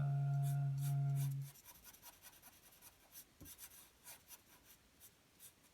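A steady low hum with overtones that stops about one and a half seconds in, then pencil lead scratching on paper in many short, faint strokes, as shading is drawn.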